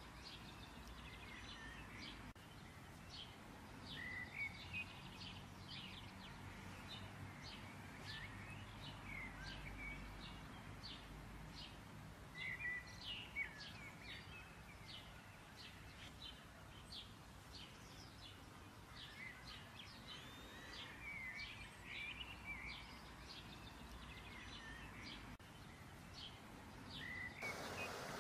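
Small birds chirping faintly and repeatedly in the background, in short bright calls, over faint room noise. A steady hiss comes in just before the end.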